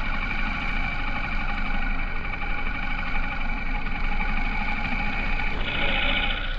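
Honda H'ness CB350 single-cylinder engine running steadily on the move, with low wind rumble. The sound turns brighter and higher near the end.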